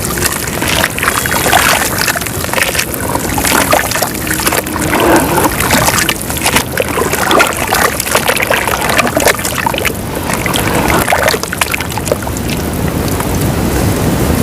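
Lumps of dry white dirt crumbling apart in water, a dense run of small crackles and splashes with sloshing water.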